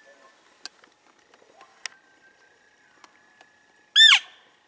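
Bull elk bugling: a loud, short, high whistle about four seconds in that slides down in pitch, with a few light clicks before it.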